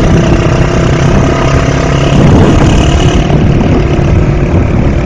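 Small motorcycle engine running steadily at road speed, with heavy wind noise on the microphone.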